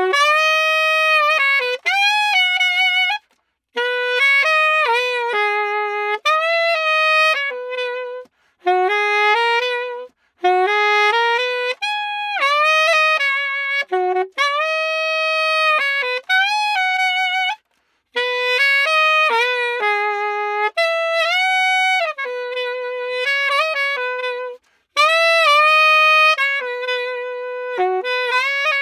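Yamaha 62 saxophone played unaccompanied: a melodic line in phrases broken by short pauses for breath.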